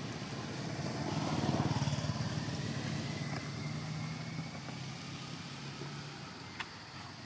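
An engine running steadily, swelling louder about a second in and then easing off.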